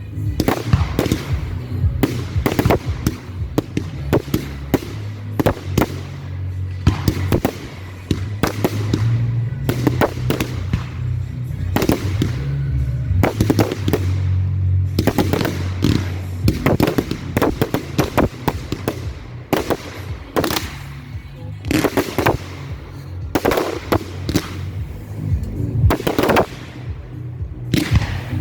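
Fireworks display: a dense, continuous string of firework bangs and crackles, with music playing underneath.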